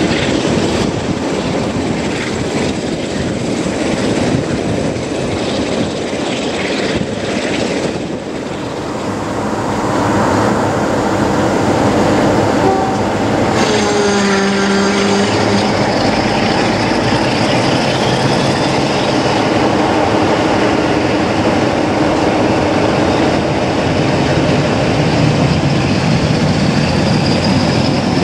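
Moving train heard from an open coach window: the steady run of a Class 47 diesel locomotive's Sulzer engine hauling the coaches, with wheel-on-rail noise and rushing air. It dips a little around eight seconds in and builds up again, with a brief pitched whine about halfway through.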